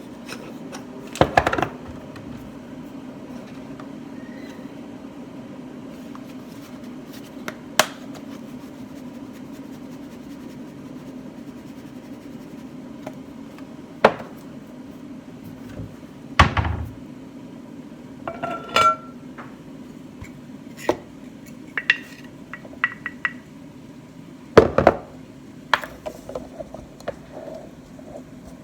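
Kitchen clatter: pans, utensils and containers knocked, clinked and set down on the counter at irregular moments, over a steady low hum.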